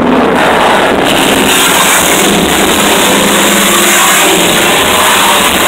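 Harsh noise music: a loud, unbroken, distorted wall of noise from a table of chained effects pedals played through a PA speaker, with a few faint steady tones buried underneath.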